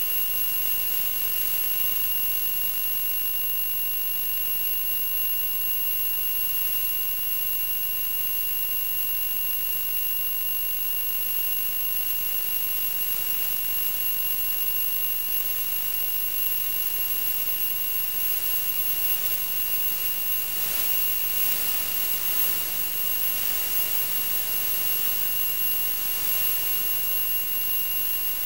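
Steady hiss with a constant high-pitched tone running through it, the static-laden audio of an analog FPV video link recorded on the DVR. There is a faint, even hum underneath.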